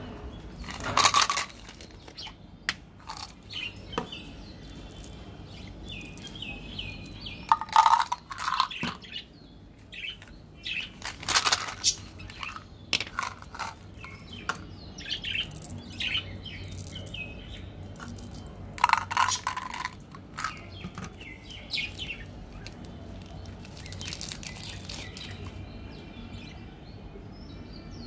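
Hands handling candy packaging: a plastic bottle-shaped candy container opened, candy-coated chocolate beans shaken out, and a wrapper torn and crinkled, in a few loud rustling bursts with small clicks between. Birds chirp faintly in the background.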